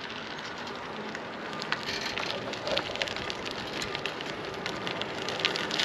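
Bicycle tyres rolling over rough, gritty asphalt: a steady crackling hiss, dotted with small clicks.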